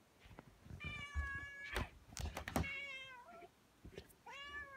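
Domestic cat meowing to be let outside: three meows, the first long and level, the second falling away, the third short and arched, with a few sharp knocks in between.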